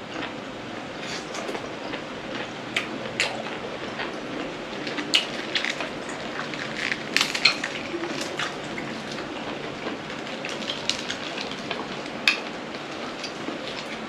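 Close chewing and crunching of blanched baby octopus and blood cockles, with many irregular sharp crisp clicks and crunches. A few clinks of shells or utensils against the plate are mixed in. The octopus is very crunchy.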